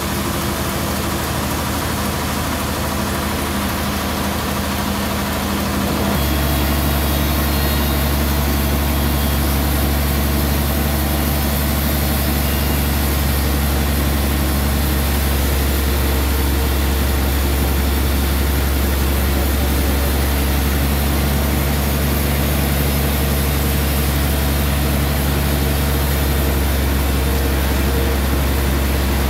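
Large band sawmill running as its blade cuts lengthwise through a suar wood log: a steady machine drone with a low hum. About six seconds in, the hum steps lower and louder and then holds steady.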